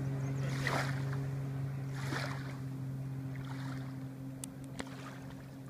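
Personal watercraft engine running at a steady pitch while towing a skier, growing fainter as it pulls away. Short swishes of noise come about every second and a half, with a few sharp clicks near the end.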